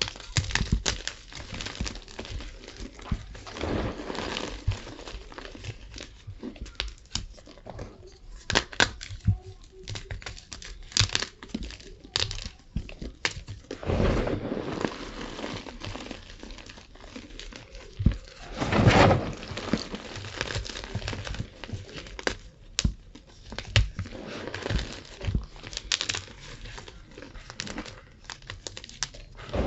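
Tie-dyed gym chalk being crushed: a steady run of crisp crunches and crackles as it breaks and crumbles, with longer, louder crunches around 14 and 19 seconds.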